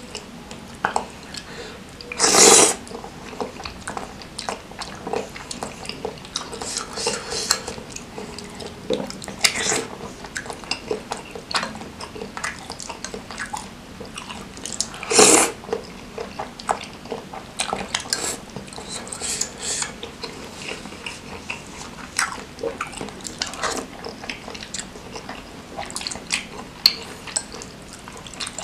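Close-miked eating of spicy seblak noodles: wet chewing and slurping, with a metal fork clinking and scraping against a glass bowl. Two brief, loud slurps stand out, a few seconds in and about halfway through.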